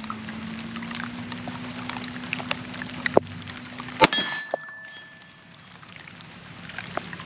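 Rain falling, with many small scattered drop ticks. About four seconds in, a single sharp metallic clang rings briefly and fades.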